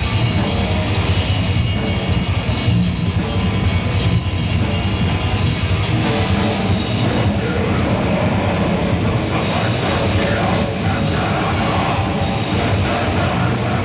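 Live metal band playing: distorted electric guitars, bass and drum kit, loud and unbroken.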